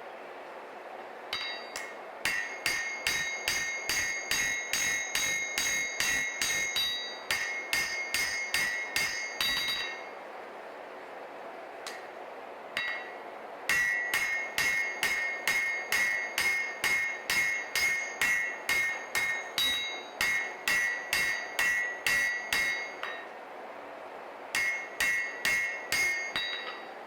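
Cross-peen hammer blows on hot Damascus steel on an anvil while drawing out the bevels of a chef knife blade: about two ringing strikes a second in three runs, the last one short, with pauses between. A steady hiss runs underneath.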